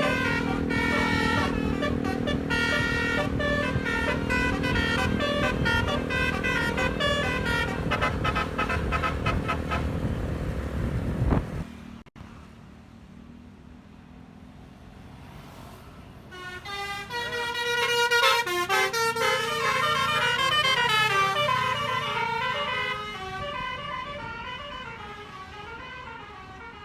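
Basuri-style melodic air horn on an Isuzu Traga truck, driven by a DAV air horn tone module, playing a tune of quick stepped notes over a low rumble. It cuts off abruptly about twelve seconds in; a few seconds later the tune starts again and fades away near the end.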